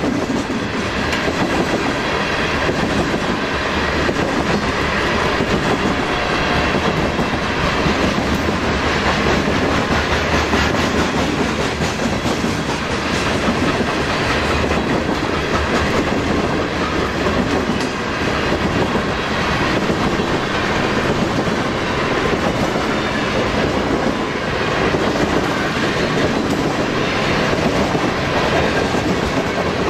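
Loaded covered grain hopper cars of a freight train rolling past, their steel wheels running on the rails with a steady, loud noise.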